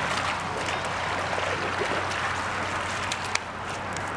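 A fast-flowing creek rushing steadily, with a hooked pink salmon splashing at the surface as it is fought in. A single sharp click comes a little over three seconds in.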